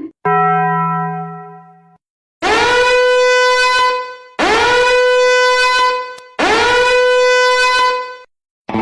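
Meme sound effect: a short ringing tone that fades out, then three long horn blasts on the same note, each swooping up into it at the start.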